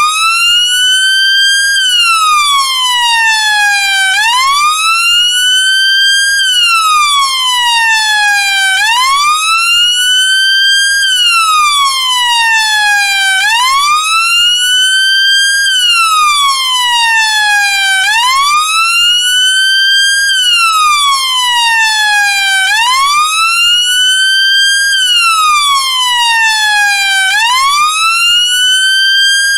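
British police car siren sounding its wail tone: a loud, slow rise and fall in pitch that repeats evenly about every four and a half seconds.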